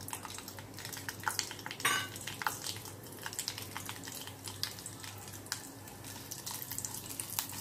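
Whole spices (bay leaf, star anise, cinnamon and cumin seeds) sizzling and crackling in hot oil in a nonstick kadai, with irregular small pops and a sharper tap about two seconds in. A metal spatula stirs against the pan near the end.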